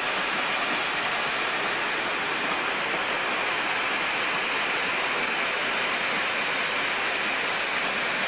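Steady rushing noise of a train of passenger coaches rolling past the platform as it pulls away behind a distant Class 37 locomotive.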